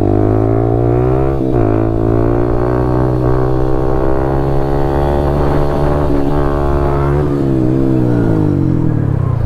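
Motorcycle engine held at high, steady revs through a wheelie, with a short break in the note about a second and a half in. The revs fall away over the last two seconds as the throttle comes off and the front wheel comes down.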